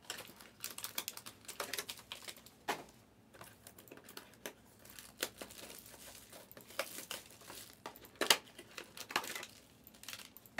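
Foil trading-card pack wrappers crinkling as the packs are handled, a run of irregular crackles and snaps, the loudest about eight seconds in.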